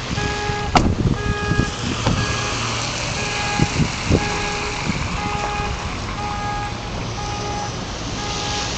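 Electronic beeping repeating a little faster than once a second, two pitches alternating, with a few sharp knocks and clicks over it.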